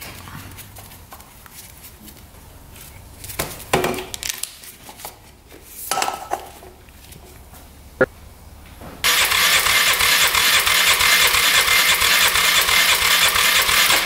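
A few handling knocks and clicks, then, about nine seconds in, the electric starter of a 1995 Polaris Magnum 425's single-cylinder engine cranks it with the spark plug out for a compression test. The cranking is loud and steady with an even pulsing, and lasts about five seconds. The test reads about 90 psi, held low by the cam's decompression mechanism at cranking speed.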